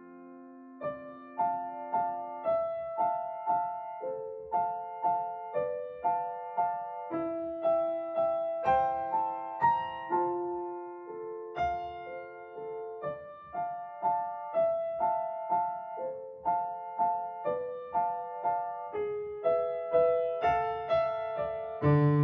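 Background music: piano playing a gentle, steady pattern of repeated notes, with lower notes coming in near the end.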